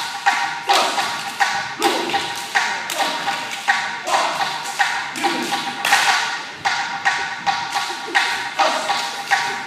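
Music accompanying a Pacific Islander group dance: a fast, even drumbeat of sharp, wooden-sounding strikes, about three a second, over steady held tones.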